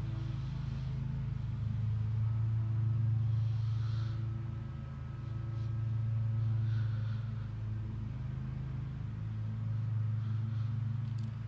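A steady low hum with a few overtones, swelling and easing every three to four seconds.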